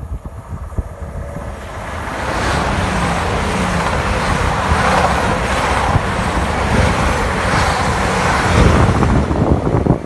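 EMR Intercity diesel passenger train approaching and passing close by: a rush of wheels on the rails and engine noise that builds over the first couple of seconds and stays loud, with a deeper rumble near the end.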